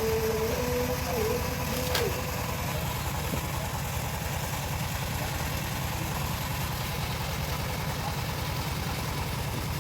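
Homemade bandsaw's drive engine running steadily with a low, even rumble; no cutting is heard. A wavering pitched tone in the first two seconds ends with a sharp click about two seconds in.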